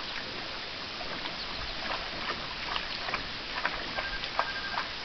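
A boxer's paws splashing in shallow water: a string of short, irregular splashes over a steady background hiss.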